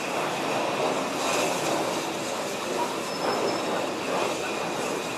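Steam-hauled train's wheels running on curved track through pointwork, a steady rolling noise with a brief thin high wheel squeal about three seconds in.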